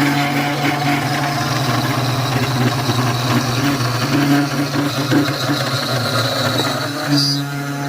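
CNC router spindle running with a 3 mm end mill surfacing wood, a steady machine drone with a high whine over it. The tone shifts briefly about seven seconds in.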